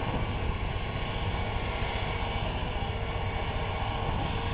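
Steady drone of a heavy-equipment diesel engine running, without clear changes in pitch or load.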